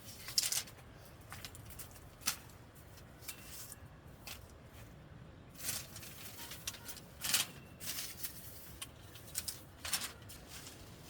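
Intermittent rustles and light clicks of things being handled, about a dozen short sounds at irregular intervals, the sharpest near the start and about seven seconds in.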